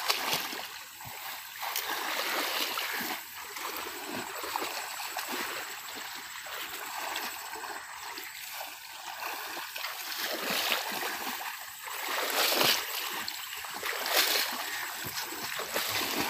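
Splashing and sloshing of shallow muddy water as people wade and grope through it by hand among reeds, with a few louder splashes in the second half.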